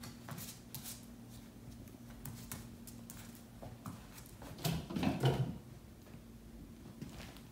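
Yorkshire terrier puppy playing among her toys: scattered light taps and scuffles, with a louder, rougher scuffle about five seconds in, over a faint steady hum.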